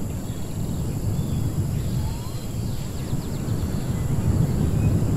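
Edited nature ambience: a steady low rumble of wind-like noise, with faint bird chirps and a short rapid clicking trill about three seconds in.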